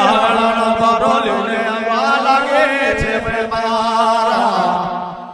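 Men singing a drawn-out devotional chant over beats of a two-headed hand drum, the song fading out near the end.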